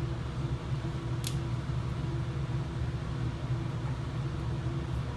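Steady low mechanical hum, with a single light click about a second in.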